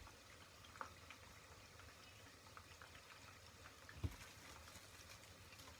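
Near silence: faint room tone with a few small clicks and one soft knock about four seconds in.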